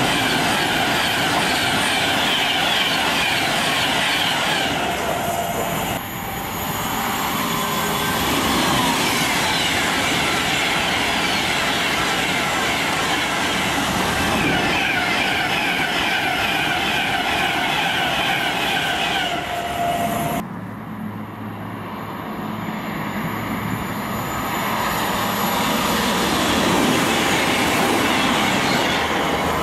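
Virgin Class 390 Pendolino electric trains passing through the station at speed: a loud, continuous rush of wheel and air noise with a steady tone, across two separate shots. From about two-thirds of the way in, a quieter Class 221 Voyager diesel unit passes with a low engine hum that builds as it nears.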